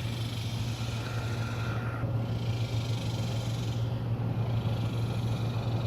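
Central air conditioner's outdoor unit running with a steady low hum.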